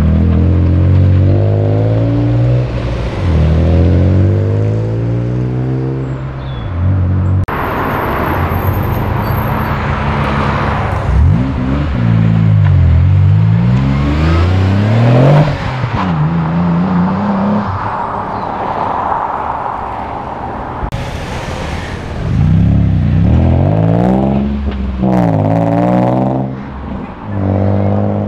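A series of modified cars pulling away one after another under hard acceleration. Each engine note rises and drops back repeatedly as the revs climb and fall.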